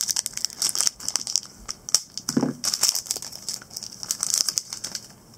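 Foil wrapper of a football trading-card pack being torn open and crinkled by hand: a dense, rapid crackle that thins out near the end.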